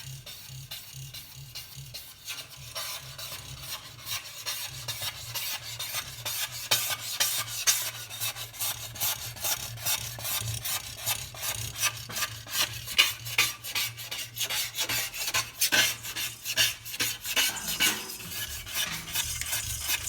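Glass-ceramic cooktop scraper blade scraping soot off fireplace door glass in quick, repeated rasping strokes, a few a second, growing louder as the work goes on.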